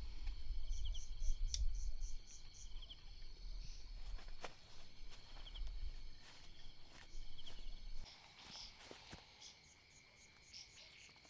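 Crickets or other insects chirping in short, evenly repeated pulses over a forest background, with a strong low rumble that stops about eight seconds in. Scattered sharp clicks and knocks are heard throughout.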